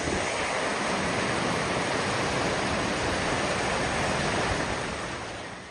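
Steady rushing noise of heavy water, as in flood or storm footage, fading out near the end.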